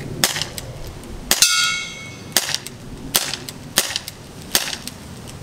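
CO2 gas-blowback airsoft Desert Eagle firing six shots, each a sharp pop, roughly one every three-quarters of a second. After the second shot, a short metallic ring: a BB striking metal downrange.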